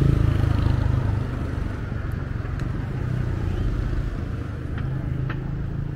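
A motor vehicle passing close by, its low engine hum fading away over the first second or so, then a steady low rumble of street traffic.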